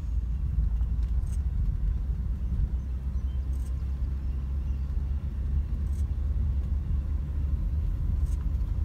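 A steady low rumble, with four faint ticks about two and a half seconds apart.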